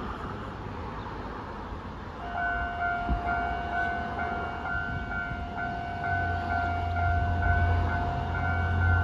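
A Taiwanese railway level-crossing warning signal starts about two seconds in: a steady electronic ringing that pulses regularly. It warns that a train is approaching. From about six seconds in, a low rumble swells beneath it.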